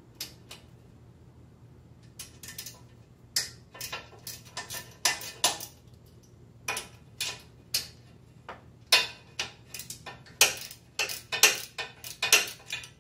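Metal hand tools clinking and clicking, short sharp metallic strikes coming in irregular clusters, as the 12 mm exhaust nuts are worked on.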